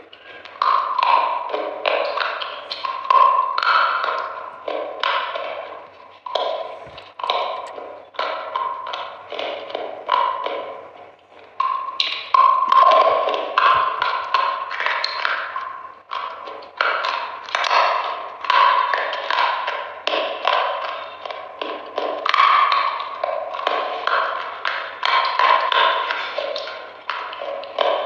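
Close-up eating sounds of a crisp frozen ice cream bar: a near-continuous run of crunching bites and chewing clicks.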